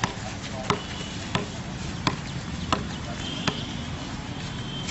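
A ball being tapped along a hard outdoor sports court: six sharp knocks, evenly spaced about two-thirds of a second apart, stopping about three and a half seconds in.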